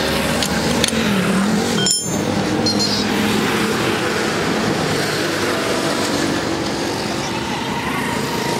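Street traffic: motor vehicle engines running and passing over a steady road-noise hiss, with a brief cut in the sound about two seconds in.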